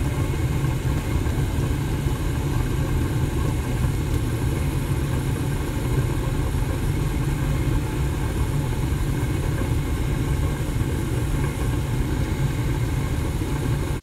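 Rheem gas furnace running with its burners firing and inducer motor turning: a steady low rumble that holds even throughout.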